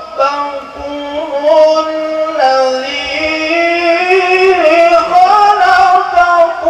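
A man chanting Quran verses in the melodic recitation style (tilawah), close to a handheld microphone: long held notes with wavering ornaments, gliding between pitches, broken only by short breaths.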